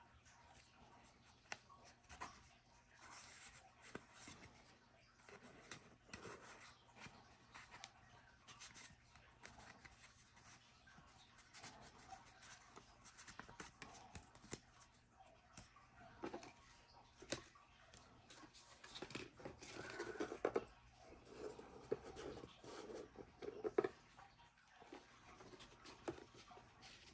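Faint handling noises: light rustling, scraping and small taps from packaging and a wallet being handled, a little busier near the end.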